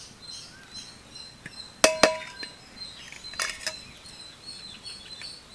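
Stainless steel bowls and spoon clinking: two sharp metallic clinks with a brief ring about two seconds in, then a few lighter clicks a little later, as spice powder is tipped onto the chicken and the bowl set down. Insects chirr steadily and birds chirp behind.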